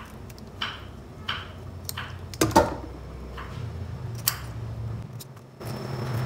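Kitchen scissors snipping through small round scad while cleaning them, about six short cuts roughly a second apart, the loudest near the middle, over a low steady hum.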